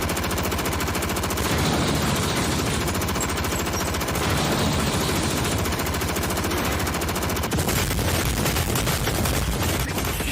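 Anime fight sound effects: an unbroken, rapid-fire barrage of punch impacts, many hits a second, with no pause.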